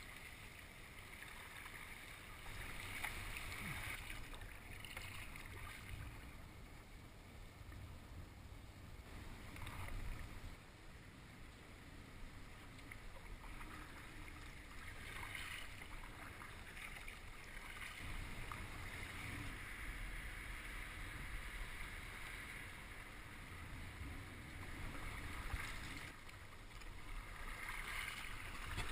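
Water splashing and sloshing around a paddled kayak, with a few louder splashes, over a low rumble of wind on the microphone.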